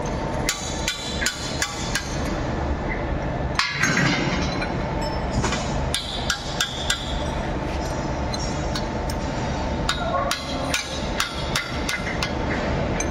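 Hand hammer striking a tool set against the metal casing of a Marflex cargo pump being dismantled: sharp metallic taps in several quick runs of blows with short pauses between, over a steady workshop hum.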